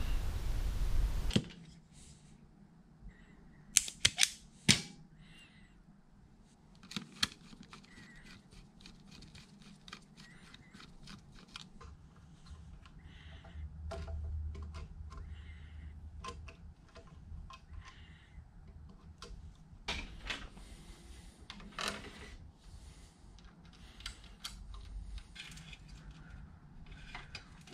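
Clicks, taps and rustles of hands working with tools, electrical wire and lathe parts: a few sharp clicks close together about four seconds in, then scattered small clicks and handling noises. A steady rushing noise fills the first second or so and then cuts off.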